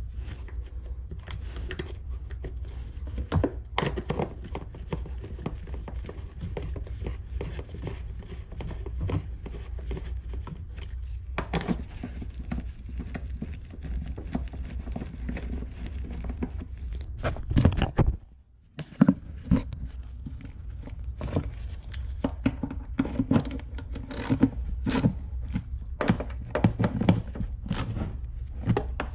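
Hand work on an ATV's carburetor and airbox: irregular knocks, clicks and thunks of parts being handled and fitted, over a steady low hum. The sound drops out for a moment about eighteen seconds in.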